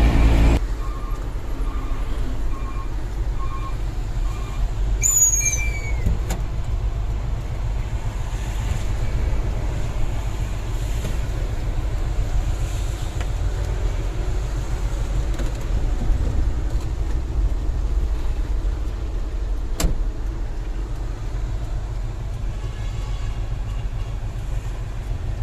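Hino dump truck's diesel engine and road noise droning steadily while driving, heard as a continuous low rumble. A brief high squeal comes about five seconds in, and a single sharp click near the end.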